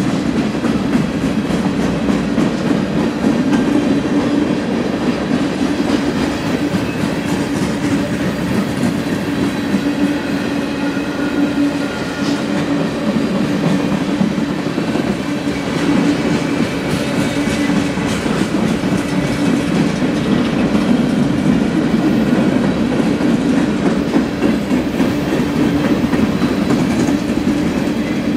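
Boxcars and tank cars of a manifest freight train rolling past, a loud, steady rumble of steel wheels on rail.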